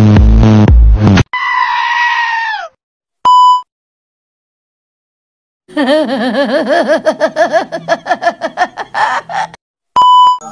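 Edited meme audio. Loud bass-heavy music cuts off about a second in, followed by a short falling cry and a brief beep. After a pause comes a long, wavering scream with a quivering pitch lasting about four seconds, and near the end the steady 1 kHz tone of a colour-bars test card.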